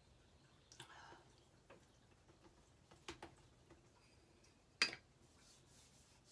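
Light handling of makeup items in a quiet room: a few faint clicks and taps, the sharpest a little before five seconds in.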